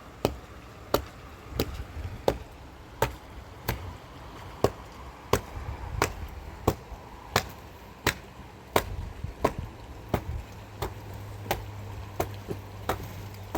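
A hand tool striking in a steady rhythm, about twenty sharp blows at roughly one and a half a second, like chopping.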